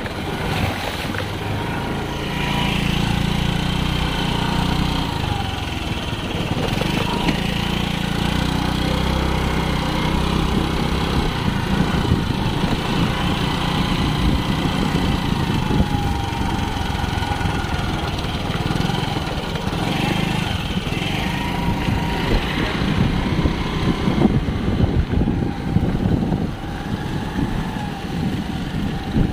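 A vehicle engine running steadily, with an even hum for about the first ten seconds that gives way to a rougher rumble.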